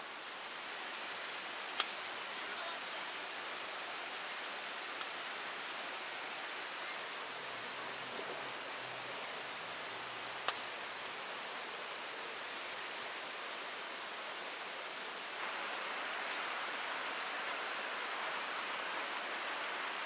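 Steady hiss of rain falling, with a few sharp single pops from the burning wood campfire. The hiss grows a little louder about three-quarters of the way through.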